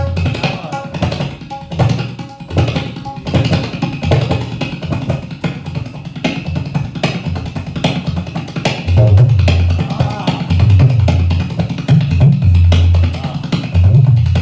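Tabla played as a train: rapid, rhythmic strokes imitating the clatter of coach wheels over the rail joints. The bass drum of the pair booms low and grows heavier and louder about two-thirds of the way in.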